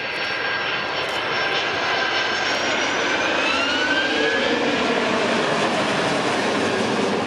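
Boeing 757 jet airliner's engines at high power in a display flight: a steady jet roar, with whine tones sliding upward about three to four seconds in.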